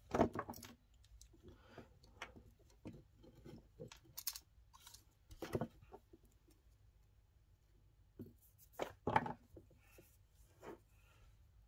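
Hands working at a small metal bench vise holding an 18650 cell and nickel strip: scattered light clicks, rubs and metallic clinks, loudest just at the start and about nine seconds in.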